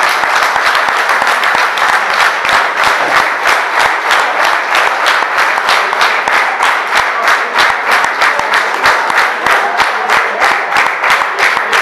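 Applause from a room full of people: many hands clapping steadily.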